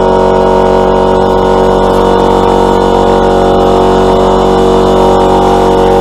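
Workshop air compressor running steadily with a loud, even mechanical drone: noisy, as it fills its tank after being switched on.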